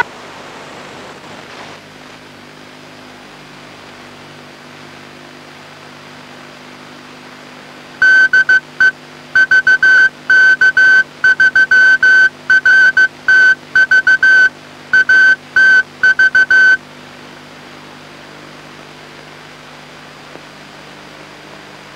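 Amateur-television repeater's Morse code identification: a single high tone keyed on and off in dots and dashes for about nine seconds, starting about eight seconds in. Underneath is a steady hiss with a low hum from the received signal.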